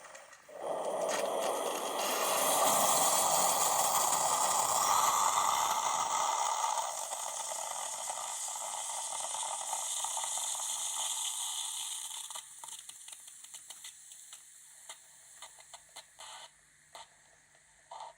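Tassimo Suny pod coffee machine finishing a brew: a loud hissing sputter as water, steam and air are forced through the pod, easing off and fading out after about ten seconds, followed by a few small drips and clicks.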